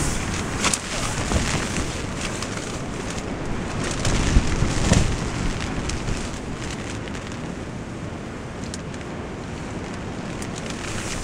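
Gusty storm wind buffeting a Eurohike Bowland 2 tent, heard from inside, with the nylon fabric rustling as the inner tent is clipped in. A stronger gust swells about four to five seconds in.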